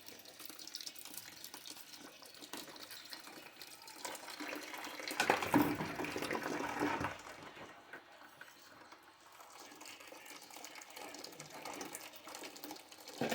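Dirty, rusty water running out of a steam boiler's opened sight-glass fitting into a bucket. It flows harder for a few seconds around the middle. The dislodged rust from the blocked tube is being flushed out.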